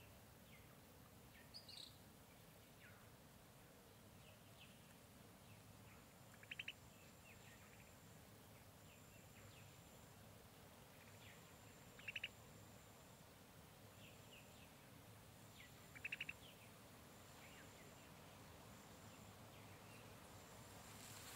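Faint tropical jungle ambience: scattered short bird chirps and three quick rapid trills about five seconds apart, with a thin high whine coming and going from about six seconds in.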